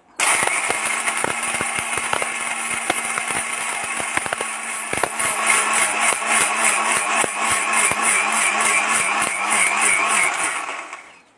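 Electric mixer grinder motor running at full speed, grinding dried mushroom pieces to powder in its steel jar, with the dry pieces ticking against the jar. It starts right at the beginning and runs down and stops near the end.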